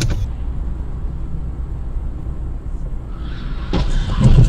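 Low, steady road and engine rumble inside a moving car. Near the end a rising rush of noise builds into a loud crash as cars collide ahead.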